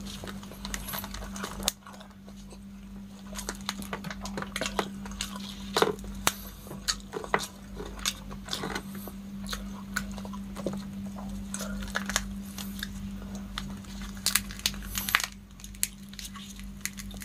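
Cooked giant freshwater prawn shells cracking and crackling as gloved hands pull them apart and peel them, in close, irregular clicks and snaps, with some chewing. A steady low hum runs underneath.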